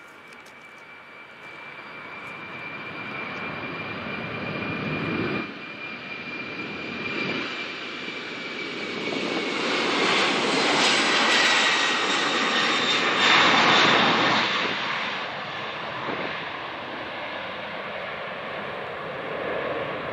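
Boeing 767 freighter's twin turbofan engines on the takeoff roll, growing louder as the jet approaches. A high whine drops in pitch as it passes about ten seconds in, and then the jet noise eases off.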